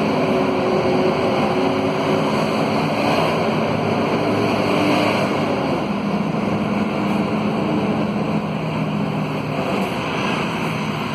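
Interior of a Scania K230UB city bus under way: its Scania DC9 five-cylinder diesel and radiator fan give a steady howling hum of several tones over road and cabin noise. The hum drops in pitch about halfway through.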